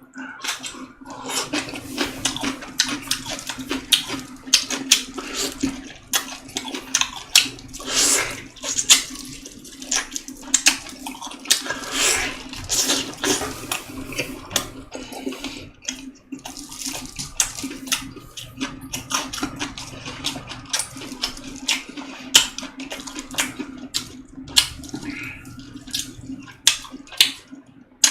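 Close-up mukbang eating sounds: wet chewing, slurping and lip smacks, many short sharp clicks, some in quick runs. A steady low hum runs underneath.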